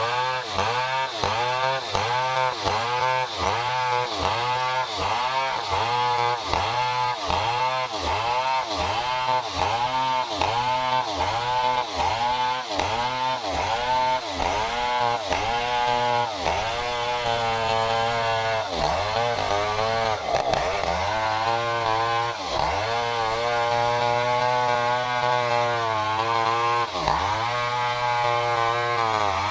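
Stihl 070 two-stroke chainsaw cutting under load as it rips lengthwise through a durian trunk. The engine note rises and falls about twice a second, then swings more slowly in longer swells through the second half.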